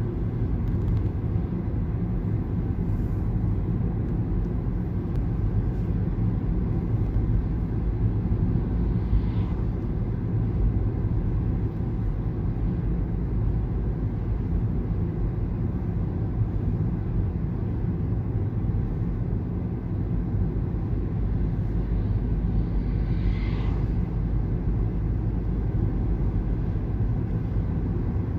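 Steady low rumble of a moving vehicle, heard from inside it as it drives along. Two faint, brief higher sounds rise above it about nine seconds in and again some fourteen seconds later.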